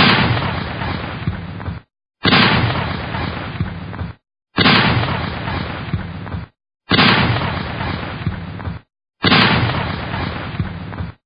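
A recorded gunfire-and-explosion sound effect: one sharp shot or blast followed by a long decaying rumble, the same clip repeated five times about every two and a half seconds, each one cut off abruptly before the next.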